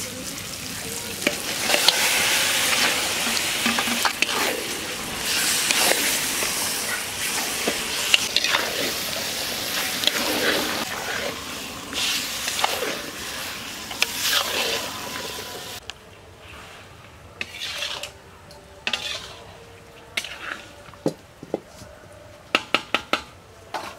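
Mutton pieces tipped into hot spice paste in a metal kadai, sizzling and frying while a spatula stirs and scrapes them against the pan. About two-thirds of the way through the frying sound stops suddenly. Only scattered clinks of pots and utensils remain, with a quick run of clinks near the end.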